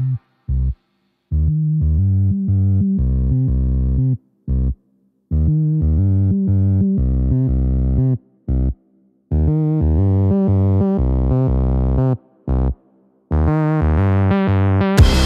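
Electronic background music: pulsing synthesizer bass chords, broken off by several short silences. A louder, fuller section begins near the end.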